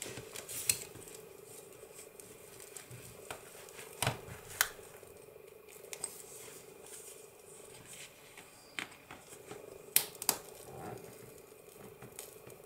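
Hands handling a fabric-and-paper journal and pushing a sewing needle through its pages: scattered light taps and rustles, with a few sharper clicks, two around four seconds in and two around ten seconds in.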